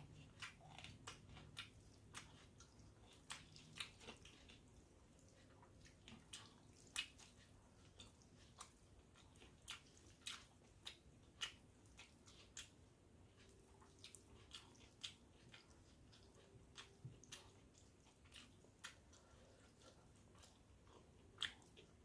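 Faint, wet chewing and mouth clicks of a person eating water-soaked rice (panta bhat). Short, sharp smacks come irregularly, about one or two a second.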